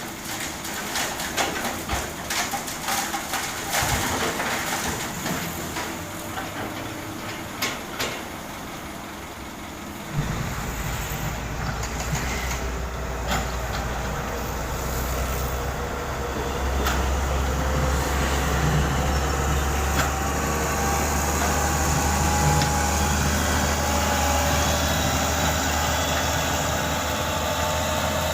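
Heavy diesel road-construction machinery at work: knocks and clatter for the first ten seconds, then a deep diesel engine drone comes in about ten seconds in, grows louder a few seconds later and stays steady.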